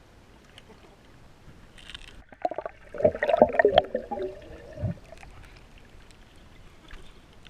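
Water splashing and gurgling close by, in a burst of about three seconds about halfway through.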